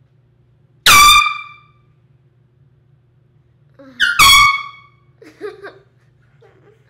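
Canned compressed-gas air horn with a red plastic horn sounding two short, loud blasts about three seconds apart, the second with a brief stutter at its start.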